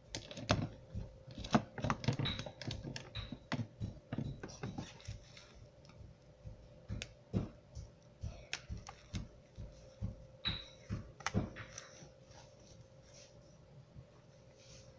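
Plastic Play-Doh toy kitchen pieces (plate, spatula, pan) being handled, clicking and tapping irregularly, busier in the first few seconds and sparser later. A faint steady hum runs underneath.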